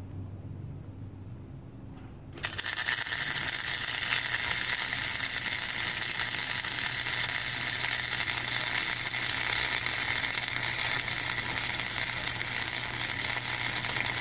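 Wire-feed welder arc crackling and sizzling as a continuous bead is run on steel angle iron. It strikes about two seconds in and holds steady, with sparks flying, until it stops abruptly at the very end.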